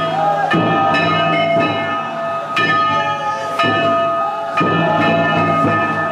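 Japanese festival music (matsuri-bayashi) played on a festival boat: a metal hand gong struck in a steady beat about once a second, over a steady held high tone and a melody line that rises and falls with each beat.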